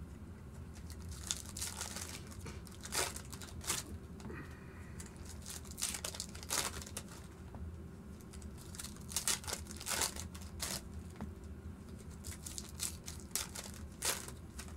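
Foil wrappers of trading-card packs crinkling and tearing as packs are opened and handled, in scattered short crackles.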